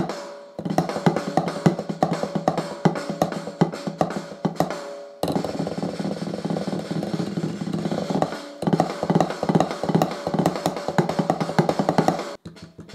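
Drumsticks playing fast strokes on a one-zone rubber USB MIDI drum pad, each hit triggering a drum sample from a laptop; the sounds lag slightly behind the hits because of the laptop's latency settings, not the pad. The playing breaks off briefly about eight seconds in and stops near the end.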